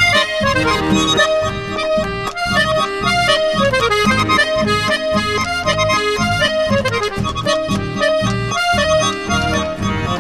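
Background music: an accordion-led folk tune over a steady pulsing bass beat, with several quick falling melodic runs.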